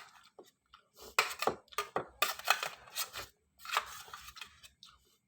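Eating utensil clinking and scraping against a bowl in a run of short, irregular clicks while the leftover vegetables are picked out.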